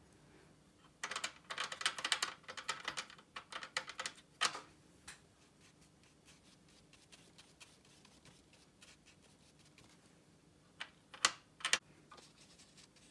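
A watercolour brush scrubbing and tapping in the paint pans of a palette: a cluster of light, scratchy clicks about a second in, quiet while the paint goes onto the paper, then a few sharp taps near the end.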